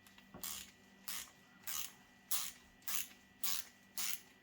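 Wera Kraftform Kompakt ratchet screwdriver's ratchet clicking in short whirring bursts as the handle is swung back and forth, about seven evenly spaced strokes a little over half a second apart.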